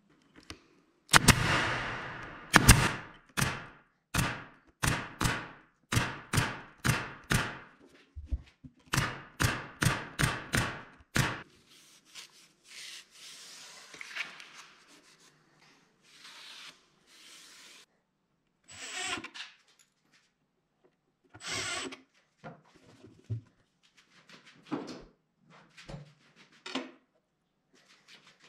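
Pneumatic nail gun firing a rapid run of about twenty sharp shots, roughly two a second, nailing a thin plywood panel onto a wooden drawer box. After that come softer rubbing and scraping of the wood being handled, and a few scattered knocks.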